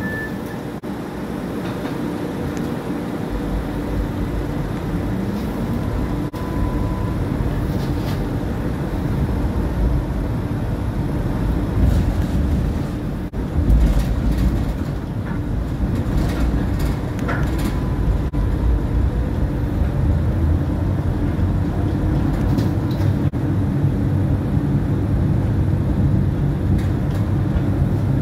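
Tram running along street track, heard from on board: a steady low rumble of wheels and running gear that builds as the tram gets under way a few seconds in, with a short rising motor whine and scattered clicks from the rails.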